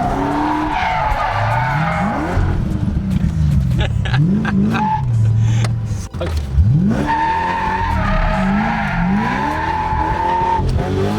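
A car driven hard round a tight course: the engine revs up and down again and again as the throttle is worked, while the tyres squeal in long screeches over the first couple of seconds and again from about seven seconds in.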